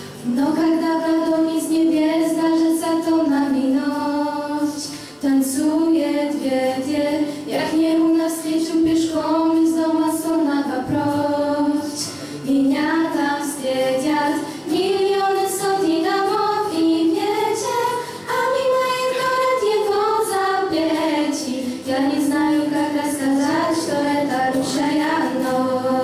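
A group of teenage girls singing a Russian song together into microphones. Their held notes rise and fall with the melody, with short breaks between phrases.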